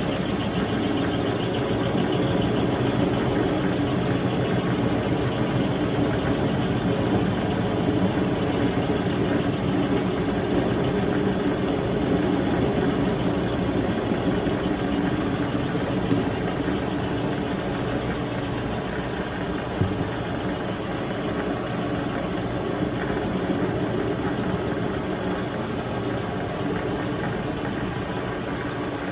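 Vevor MX 400 mini lathe running steadily, a carbide parting tool fed with steady pressure into the spinning round bar to cut the end off. The sound is a constant motor and gear drone with a little cutting noise over it, easing slightly near the end.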